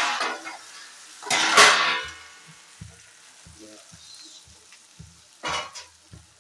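Taro pieces frying in masala in a kadhai, stirred with a slotted metal spatula that scrapes the pan, loudest about a second and a half in. Afterwards a softer sizzle with small pops and one more brief scrape near the end.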